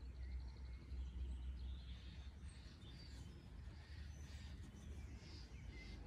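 Faint, scattered bird chirps over a low, steady outdoor rumble.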